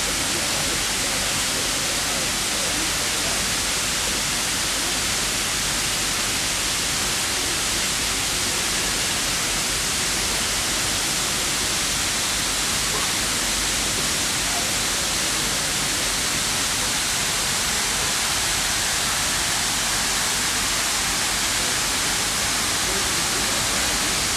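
Steady, unchanging hiss of running water from a fountain.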